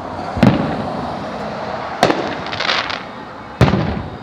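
Aerial fireworks shells bursting: three loud booms about a second and a half apart, each trailing off in a rolling echo, with a short spell of crackling between the second and third.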